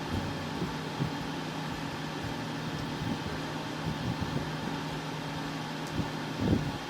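Steady mechanical hum in the room, with a few soft, short taps; the loudest tap comes near the end.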